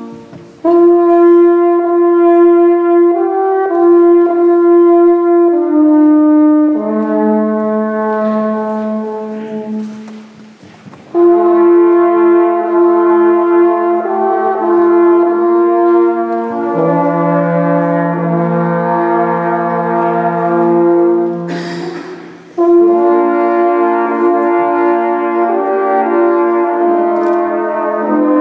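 Alphorns playing a slow piece in harmony in a church: held chords in three long phrases, each broken off briefly before the next begins.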